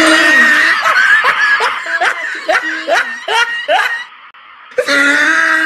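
Someone laughing in short rising bursts, about three a second, breaking off about four seconds in and starting again near the end.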